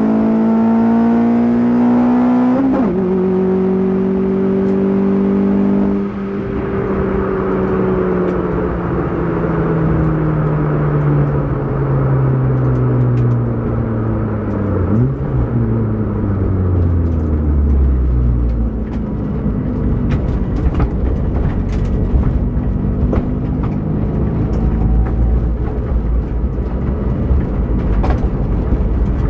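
Car engine heard from inside the cabin: it revs up under throttle, changes gear about three seconds in and holds high revs, then backs off about six seconds in and the revs fall steadily as the car slows, with a quick rev blip near the middle. It then runs at low revs with a deep rumble and scattered sharp clicks.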